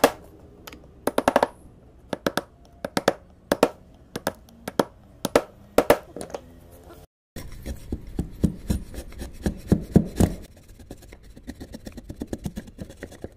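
Steel chisel struck with a small hammer, chopping out the mouth of a wooden hand-plane body in hardwood. Irregular sharp taps and knocks as chips split away. After a short break about seven seconds in come heavier knocks, then quicker light clicks of paring.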